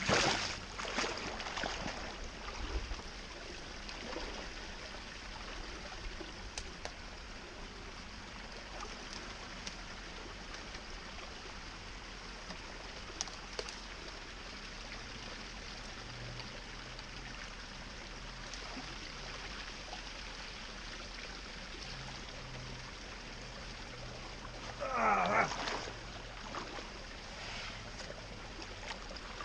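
Creek water running steadily, with splashing in the first couple of seconds as someone wades and works in the water. About three-quarters of the way through comes one brief wavering cry lasting about a second.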